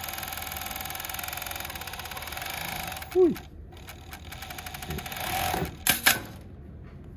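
JUKI MF7923 cylinder-bed coverstitch industrial sewing machine stitching stretch fabric with a fast, even stitch rhythm. It stops about three seconds in with a short, loud sound that drops in pitch, then runs again for a couple of seconds and stops just after six seconds.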